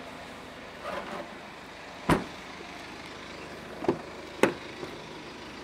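A sharp knock about two seconds in, then two clicks close together near the four-second mark as an SUV's rear door handle is pulled and the door latch releases, over a faint steady hiss.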